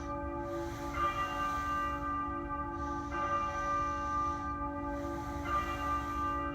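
A single church bell tolling slowly as a memorial toll for the dead: three strikes about two seconds apart, each ringing on into the next over a steady low hum.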